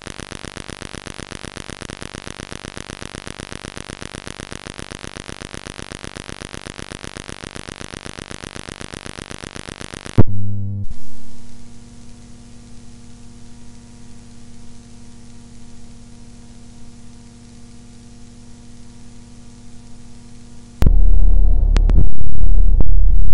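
Electronic noise piece: a rapid, evenly pulsing buzz that cuts off with a loud burst about ten seconds in, then a quieter steady drone, then near the end a loud low rumble with sharp crackles.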